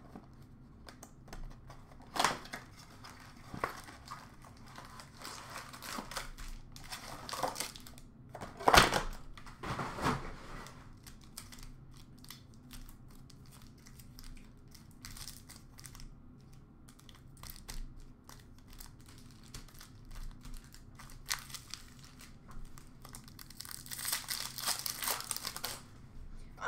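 Trading-card pack wrappers being torn open and crinkled by hand while cards are shuffled, in scattered sharp crackles with louder ones about two seconds in and around the middle, and a longer tearing rustle near the end.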